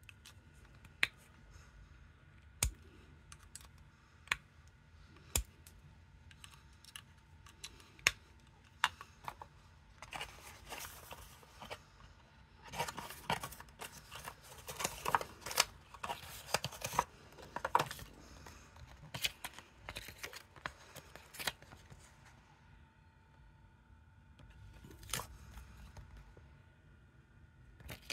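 Handling noise from unboxing a phone charger set. Sharp, separate clicks and taps for the first several seconds, then a long stretch of paper and cardboard rustling from the box insert and the printed leaflet, which dies down near the end.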